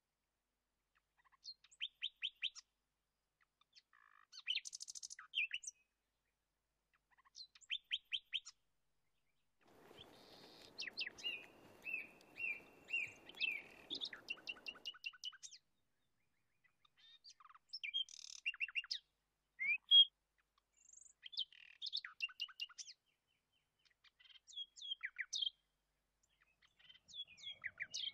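Songbirds singing: short bursts of rapid, quick-falling chirps repeated every couple of seconds, with a soft low noise under them for a few seconds in the middle.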